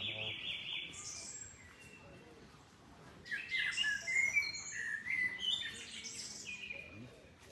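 Songbirds singing: a held note in the first second, then scattered high chirps, and from about three seconds in a busy stretch of several birds' quick, overlapping notes.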